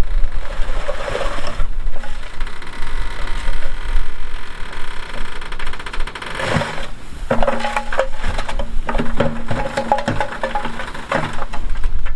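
Bulldozer working: its diesel engine rumbling with crunching and clanking, which grows busier with a run of sharp knocks and a steady hum from about halfway through.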